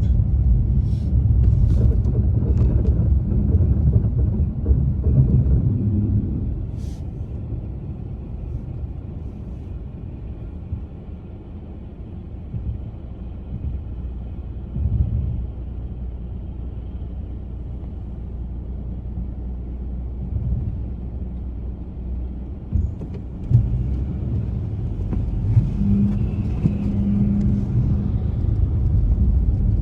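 Car driving on a snow-covered road: a steady low rumble of engine and tyres that eases off for a long stretch in the middle and builds again near the end.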